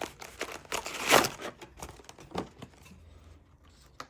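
Foil wrapper of a trading card pack being torn open and crinkled, with a loud tearing burst about a second in followed by lighter crackling.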